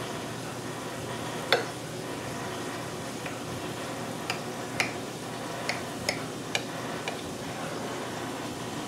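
A table knife cutting through a round of cornbread on a ceramic plate, the blade clicking sharply against the plate about eight times, loudest about a second and a half in, over a steady background hiss.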